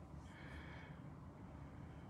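Near silence: a low steady room hum, with one faint soft rustle about half a second in.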